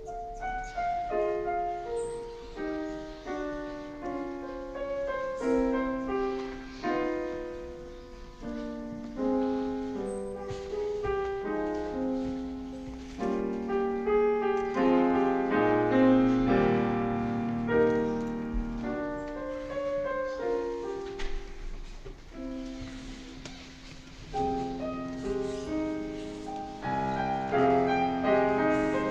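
Solo grand piano playing a slow, lyrical piece, with sustained chords and a melody over them; it swells to its fullest, with low bass notes, about halfway through, softens briefly, then grows fuller again near the end.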